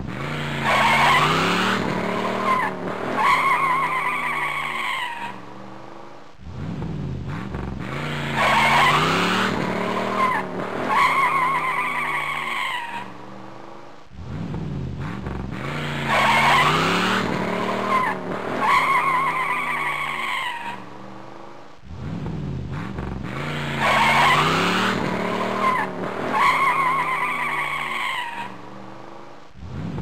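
A car's tyres squealing in a skid while its engine revs and pitches up and down. The same few-second sound repeats about four times, roughly every eight seconds, each time with two loud squeals.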